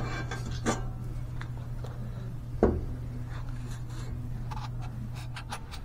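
Light handling noise from a cast iron exhaust manifold with a bolted-on bracket being turned in the hand. There is a soft knock about two and a half seconds in and a few faint clicks near the end, over a steady low hum.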